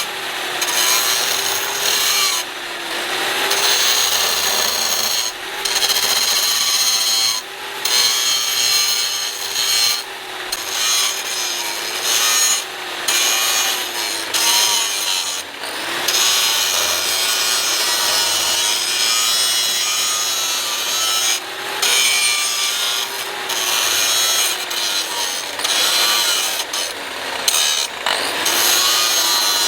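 A power tool abrading material in long passes, its motor pitch wavering with the load, with brief breaks every two to three seconds.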